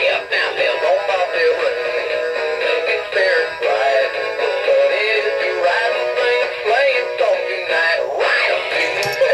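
A Christmas Big Mouth Billy Bass animatronic singing fish playing a Christmas song through its small built-in speaker: a male voice singing over a music backing track. The sound is thin, with very little bass.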